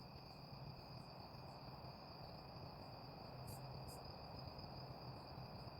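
Faint, steady high-pitched trilling of crickets, with a faint low hum underneath.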